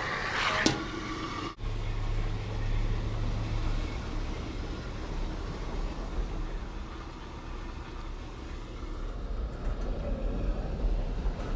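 Steady low rumble with a constant low hum, the sound of a vehicle on the road, after a brief clattery stretch with a sharp knock in the first second and a half.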